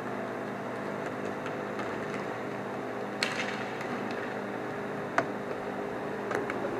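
Sharp knocks from roller hockey play, a loud one about three seconds in and a sharper one about five seconds in, over a steady hum with several constant tones.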